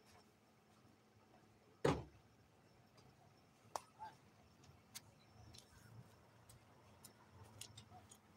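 A single sharp thump about two seconds in, then a few faint clicks over quiet outdoor background.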